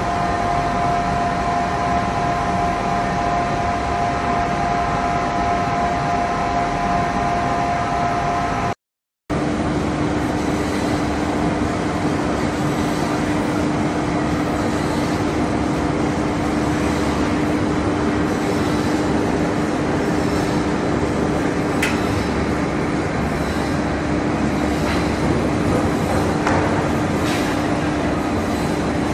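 Aluminium coil colour-coating line running: a steady machinery din with a whining tone over it. It drops out for a moment about nine seconds in, then returns with a lower steady hum and a few light clicks near the end.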